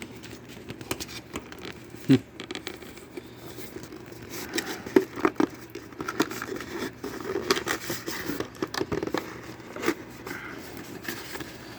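Cardboard toy box being picked at and pulled open against packing tape: irregular crinkling, scratching, clicking and tearing noises, with one short loud sound about two seconds in.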